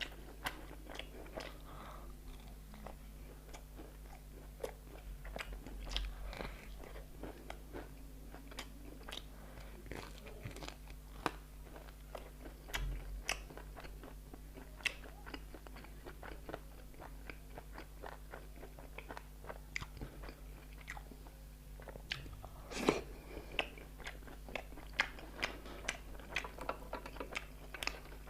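Close-miked eating: wet chewing and lip-smacking with frequent sharp clicks, over a steady low hum.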